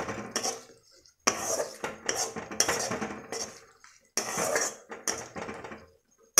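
Spatula scraping and stirring a tomato-and-spice masala around a kadai, in three bouts of quick scraping strokes with short pauses about a second in and about four seconds in. The masala is being sautéed in oil until the tomatoes soften.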